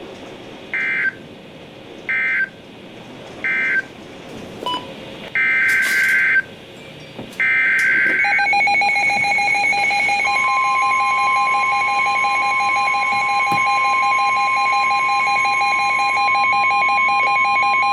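NOAA Weather Radio SAME data bursts: three short chirps close the previous message with its end-of-message code, then two longer header bursts begin the next alert. Then a pulsing electronic alarm beep starts, and about two seconds later the steady 1050 Hz warning alarm tone joins it and holds, announcing a tornado warning.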